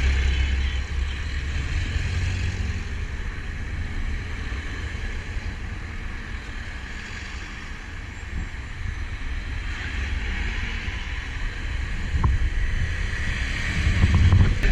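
Passing road traffic mixed with wind buffeting the microphone: a truck goes by close at the start, then cars, and a motorcycle's engine rises near the end.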